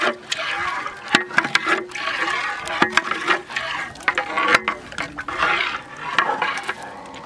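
Beaten eggs being stirred with a long stick in a large aluminium pot: liquid sloshing, with the stick knocking against the pot now and then.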